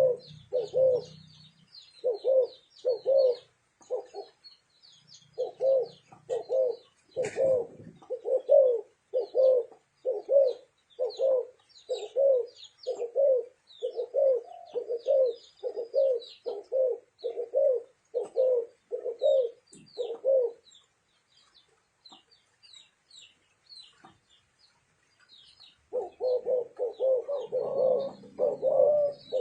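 Spotted doves cooing in a steady run of short coos, about three every two seconds, with small birds chirping faintly high above. The cooing breaks off for about five seconds after twenty seconds, then resumes thicker, with several doves overlapping.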